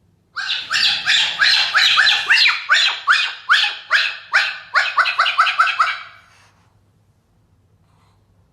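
Cockatiel giving a rapid run of short squawks, each rising in pitch, about three a second and quickening toward the end before stopping about six seconds in.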